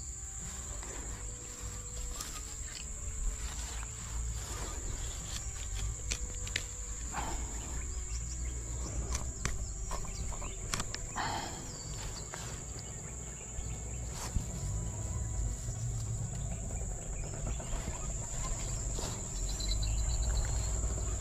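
Steady high-pitched drone of insects, such as cicadas or crickets, with scattered short clicks and knocks over a low rumble.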